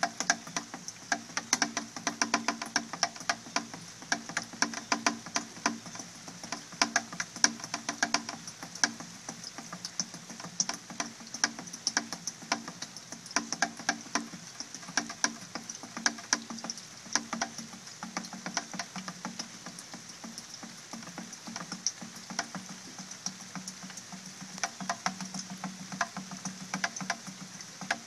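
Raindrops striking a plastic watering can and plastic buckets: a fast, irregular patter of sharp, hollow plinks with a pitched ring to them.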